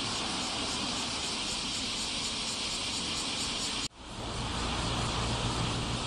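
Dense chorus of bear cicadas (kumazemi) singing steadily, with a faint even pulsing in it. It breaks off for an instant about four seconds in and resumes with a low hum underneath.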